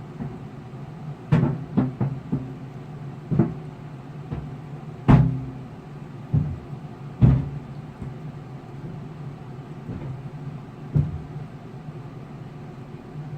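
Irregular thuds and knocks on a refrigerator door as the yarn toy tied to its handle is tugged and batted, about eight hits, the loudest about five and seven seconds in, over a steady low hum.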